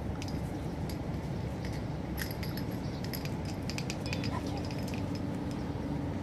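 Outdoor background rumble with scattered light clicks and ticks, thickest between about two and four seconds in, and a faint steady hum from about four seconds in.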